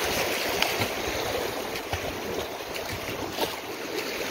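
Whitewater rushing around a canoe running a river rapid, with a few short splashes; the rush is loudest at first and eases a little as the canoe comes into calmer water.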